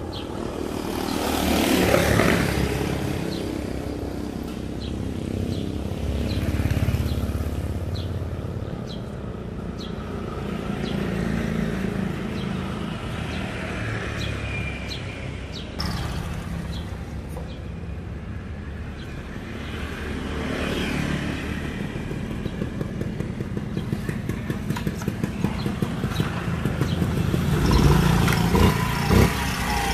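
Motorcycles passing one after another, each swelling and fading away. A pulsing engine sound grows louder over the last few seconds.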